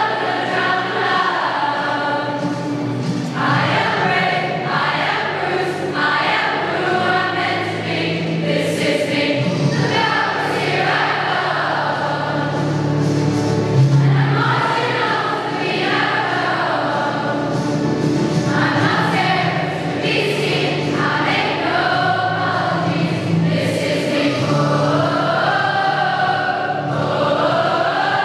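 Mass choir of several hundred school pupils singing together, phrase following phrase without a break.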